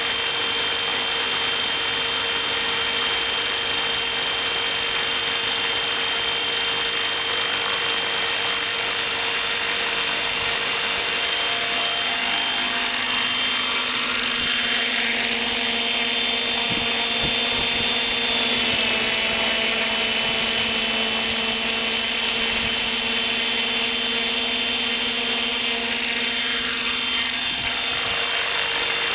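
Thunder Tiger Raptor E720 electric radio-controlled helicopter running with its rotor blades turning: a steady high whine from the electric motor and drive over the hiss of the blades. The whine's pitch shifts slightly about two-thirds of the way through as it sets down and lifts off again.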